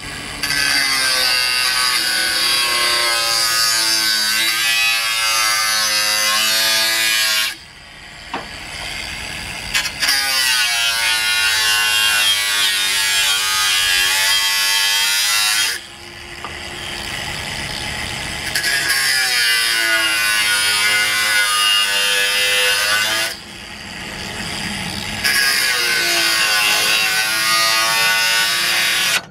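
Angle grinder with a metal cutoff wheel cutting through steel unistrut channel: a loud, high, gritty screech whose motor pitch sags as the wheel bites and recovers. There are four long stretches of cutting, each several seconds, with brief quieter spells between them.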